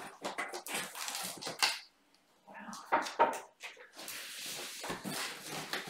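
Cardboard box flaps and packing paper rustling and crinkling as a large shipping box is opened and unpacked, with irregular scrapes and light knocks and a brief lull about two seconds in.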